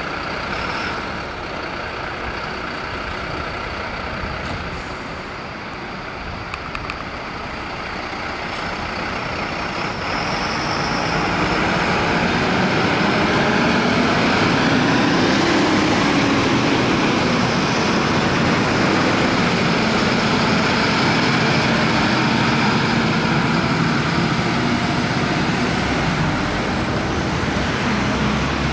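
Mercedes fire trucks' diesel engines running as the convoy pulls out, louder from about ten seconds in as a truck comes close and its engine pitch rises and falls.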